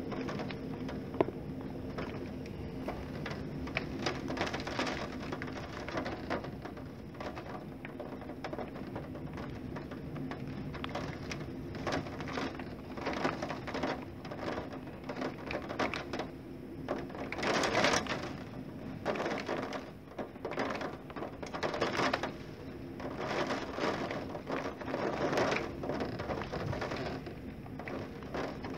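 Storm wind driving rain against a window pane, the patter swelling and easing in gusts, loudest about eighteen seconds in. A faint steady hum runs underneath.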